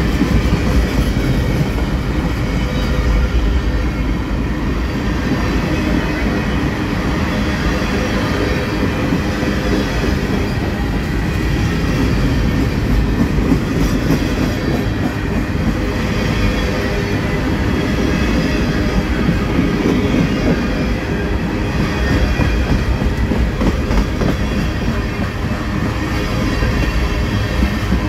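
Freight train cars (covered hoppers and boxcars) rolling past: a steady rumble of steel wheels on rail, with faint steady high ringing tones from the wheels.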